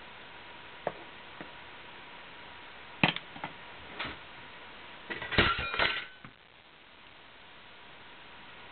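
Scattered light clicks and knocks of small hard objects being handled, with a short, louder cluster of clattering clicks and a brief ring about five to six seconds in, over a steady hiss.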